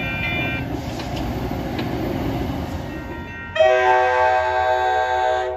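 Passenger train rumbling by, with a bell ringing in quick strokes, about two a second, that stops about half a second in. About three and a half seconds in, a locomotive's multi-chime air horn sounds one long, loud blast that cuts off sharply near the end.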